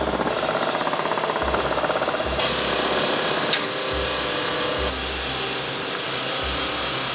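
Factory machinery running with a steady hum and a fast pulsing rattle through the first half. A sharp click comes about halfway through.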